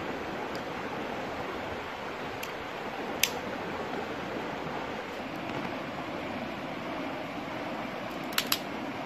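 A shallow rocky river flowing steadily. There is one sharp click about three seconds in and two quick clicks near the end.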